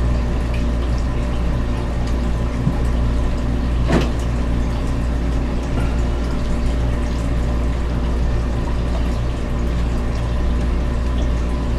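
Steady hum and watery rush of aquarium pumps and filters running, with one light knock about four seconds in.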